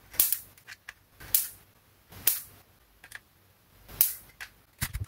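Electric mosquito racket's high-voltage mesh arcing: sharp spark snaps about once a second, six in all, one faint, as a screwdriver shorts across the grid. The repaired racket is sparking again.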